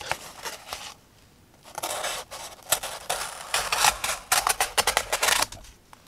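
SOG Flash FL folding knife's 8Cr13MoV plain-edge blade slicing through cardboard: a brief scrape at the start, then a longer run of rasping, crackling strokes as the blade works through the board with a little resistance.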